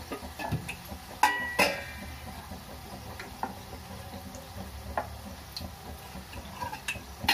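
Corn-flour nacho triangles deep-frying in hot oil with a faint steady sizzle. Over it, steel kitchenware clinks twice about a second in, with ringing, and lighter knocks follow now and then.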